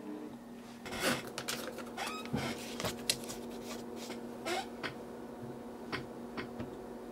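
A person moving about at a desk: clothing rustles and a quick run of clicks and knocks in the first few seconds, then a few single clicks, over a steady low hum.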